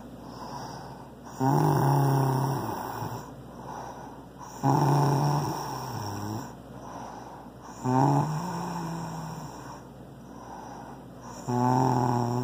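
Snoring: four snores about every three and a half seconds, each starting abruptly as a low buzzing rattle and trailing off.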